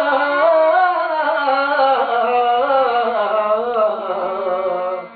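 Button accordion playing a slow melody over a held low note, with a man's singing voice; the music breaks off near the end.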